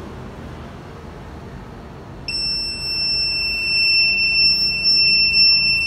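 Buzzer of a homemade fall-alarm box sounding one steady, shrill tone that comes on suddenly about two seconds in and holds. It is the fall warning going off: the device has sensed a fall.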